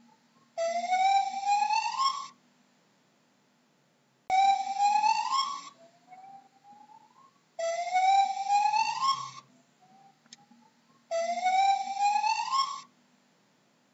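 Gibbon calling: four loud rising whoops, each about a second and a half long, come every three to four seconds. A fainter rising note falls between some of them.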